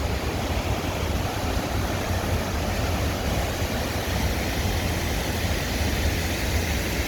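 A large waterfall, about 60 feet high, rushing steadily, with a deep rumble underneath.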